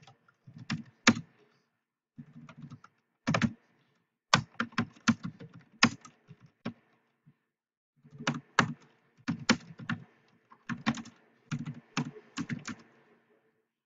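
Typing on a computer keyboard: quick runs of keystroke clicks, broken by short pauses of about a second.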